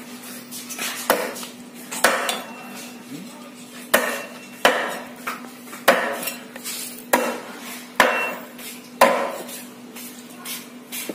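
Heavy kitchen knife chopping softshell turtle meat on a chopping board: about nine sharp chops at roughly one a second, some with a brief metallic ring from the blade.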